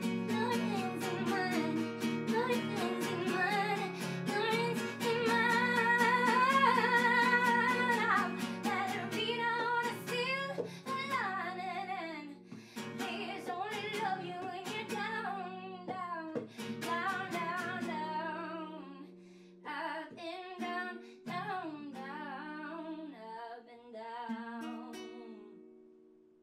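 A woman singing with vibrato, accompanying herself on acoustic guitar with strummed chords. The song's last notes die away near the end.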